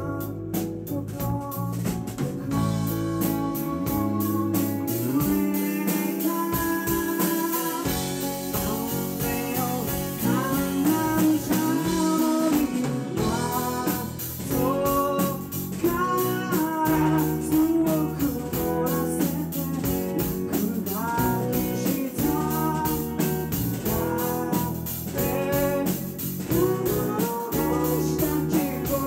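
Live rock band playing a song: a man sings the lead vocal over electric guitars and a drum kit.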